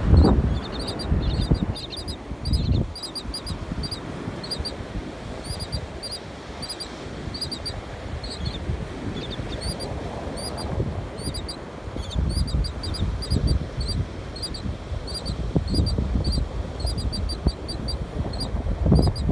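A bird giving a rapid, steady string of short high chirps, several a second, over rough low wind noise.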